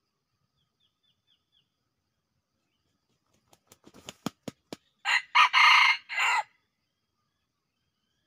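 Red junglefowl cock beating its wings, a quickening run of about eight claps, then crowing once: a short crow in three parts.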